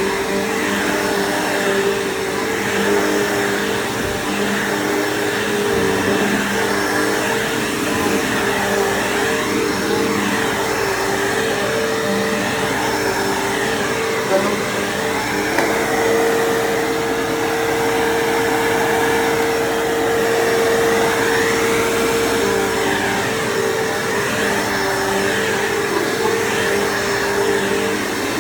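Bissell PowerForce bagged vacuum cleaner running steadily while vacuuming, a constant motor hum with rushing airflow. Its pitch shifts slightly now and then as the load changes.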